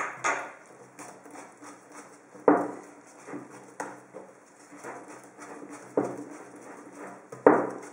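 Wire whisk beating thick cake batter in a mixing bowl, working in the baking powder: a soft wet churning with quick irregular taps and several louder knocks of the whisk against the side of the bowl.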